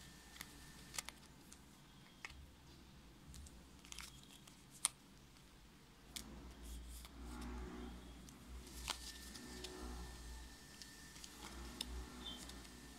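Faint handling of paper sticker flakes and their clear plastic bag: scattered light clicks with one sharper click just before halfway, then steady crinkling and rustling of the plastic from about halfway.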